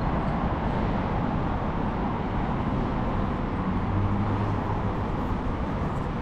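Steady rumble of road traffic, with a low engine hum swelling briefly about four seconds in.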